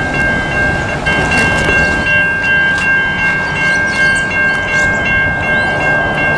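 Level crossing warning bells ringing: a loud steady tone with rapid, evenly repeating dings over it. Underneath is the low rumble of a departing V/Line VLocity diesel train and its wheels on the rails.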